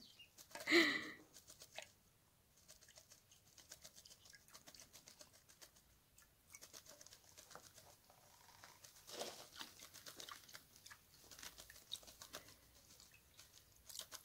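Eurasian magpie bathing in shallow water in a concrete washtub: light splashing and wing fluttering, with a pattering of droplets and a few louder splashes, the first about a second in.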